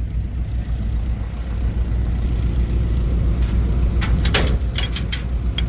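Vehicle engine idling steadily, with a few short metallic clicks and knocks about halfway through and again a second or so later.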